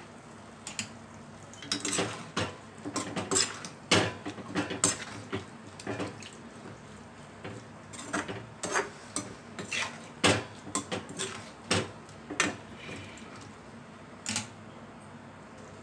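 Metal spatula scraping and clinking against a metal kadai while stirring drumstick pieces and grated dried coconut, in irregular strokes that start about a second and a half in.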